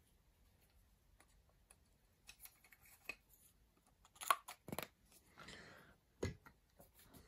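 Handling noise of small hand tools: scattered clicks and taps, loudest in a cluster about four seconds in, then a short scraping rustle and another knock.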